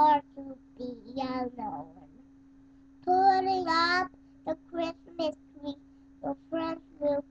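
A three-year-old boy singing a song in short, broken phrases with pauses between them. The longest and loudest phrase comes about three seconds in, followed by short separate syllables.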